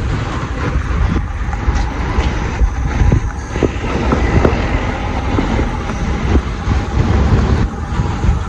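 A loud, steady low rumble of passing vehicles, with wind buffeting the microphone.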